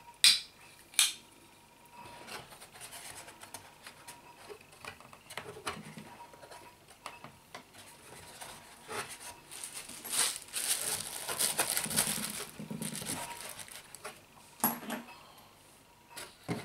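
Hard plastic clicks and knocks as an angle grinder's plastic side handle and parts are handled and set into a hard plastic carry case. Two sharp clicks come in the first second and two more near the end, with a stretch of rubbing and shuffling in between.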